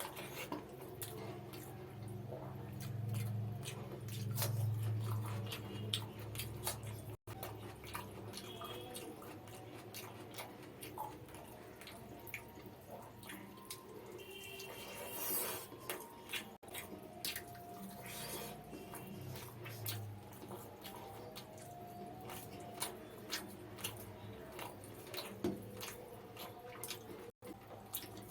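Close-up wet eating sounds of mutton biryani with raita: many small squelches, lip smacks and chewing clicks. A low rumble runs through the first few seconds.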